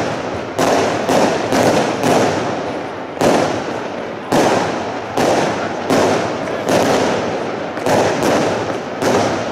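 Aerial fireworks bursting in a steady series of sharp bangs, about one to two a second, each trailing off in an echo.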